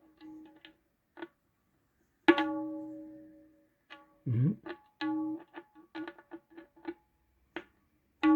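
Tabla head struck with the fingers, each stroke giving a clear pitched ring that dies away. There is a strong stroke about two seconds in, another around five seconds, then a run of quick lighter taps. The strokes are made to find a loose fragment of the cracked shyahi surface that makes the drum buzz.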